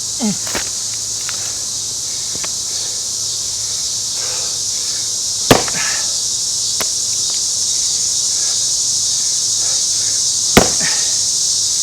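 Two sharp axe strikes on a round of fresh Scots pine, about five seconds apart, which he then calls a misstrike twice in a row. They sound over a steady high-pitched insect chorus.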